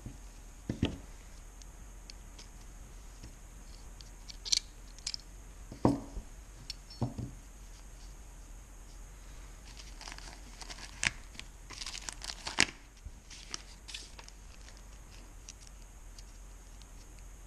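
Handling noise from a small pistol being taken apart by gloved hands: scattered light clicks and a few dull knocks, with some rustling, thickest a little past the middle.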